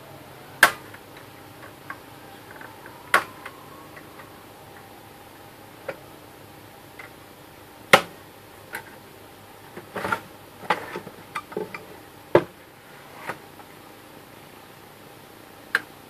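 Sharp, irregular clicks and knocks of hard plastic and a screwdriver as the opened laser printer's casing and parts are handled and unclipped. Four loud clicks stand out, with a quick cluster of smaller ones past the middle.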